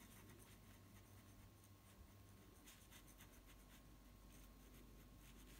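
Near silence with faint scratchy strokes of a small wet paintbrush on wood, blending watercolour-pencil colour with water.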